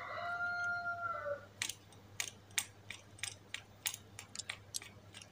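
Old bicycle bottle dynamo having its roller turned slowly by hand to generate a few volts, giving a run of sharp, irregular clicks, two or three a second. Before the clicks start, a long thin tone that dips at the end.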